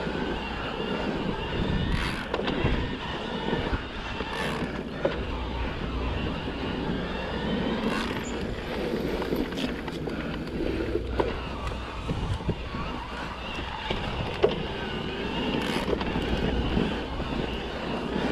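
E-mountain bike riding along a dirt trail: tyres rolling over the ground with a steady rough rumble and wind buffeting the microphone. The bike rattles sharply over bumps now and then, several times.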